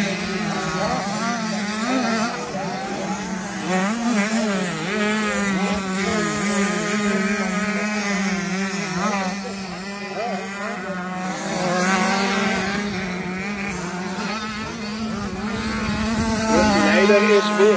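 Several motocross bikes riding the track, their engine notes rising and falling as the riders work the throttle through jumps and corners, over a steady engine drone. Near the end one bike gets louder as it comes closer.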